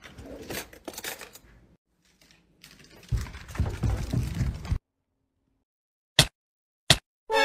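Metal baking pans clicking and scraping against each other on a countertop, followed by a stretch of muffled rumbling noise and then two short sharp clicks near the end.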